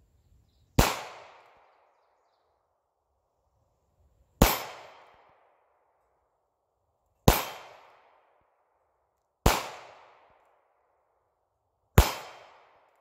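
Five slow-fire shots from a North American Arms Pug mini revolver in .22 Magnum (.22 WMR), spaced two to four seconds apart. Each is a sharp crack followed by an echo that dies away over about a second.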